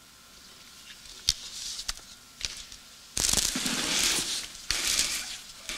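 Rustling handling noise close to a microphone: a few faint clicks, then loud rustling from about three seconds in, broken by a brief dip near the end.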